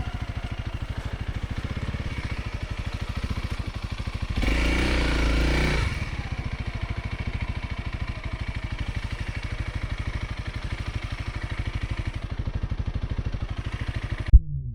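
Dual-sport motorcycle engine running at low speed with even firing pulses, louder for a moment of added throttle about four and a half to six seconds in. The sound cuts off suddenly with a click near the end.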